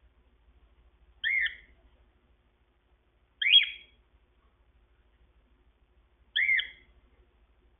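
Gray cockatiel giving three short calls a few seconds apart, each rising then falling in pitch.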